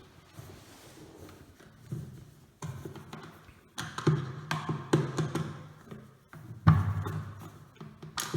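Irregular taps and knocks of a screwdriver and plastic parts as screws are driven to fix the wheels onto a plastic wet-and-dry vacuum cleaner body. The knocks ring in an empty, echoey room, the loudest about two-thirds of the way through.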